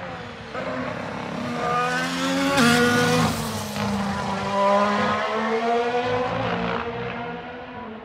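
Formula 1 car's Honda RA619H turbocharged V6 at full throttle driving past, its pitch climbing through the gears with a sharp drop at an upshift a little under three seconds in. It is loudest as the car passes, then falls in pitch and fades as it pulls away.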